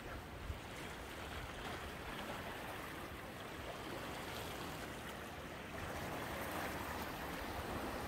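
Small sea waves washing against shoreline rocks: a steady rush of moving water that grows slightly louder about six seconds in.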